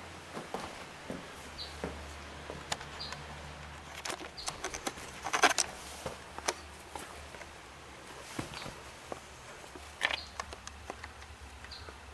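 Irregular scuffs, clicks and scrapes of shoes and hands on rock as someone clambers through a rocky crevice, with the loudest cluster of scraping about five and a half seconds in and another sharp knock near ten seconds. A short high chirp recurs every second or two.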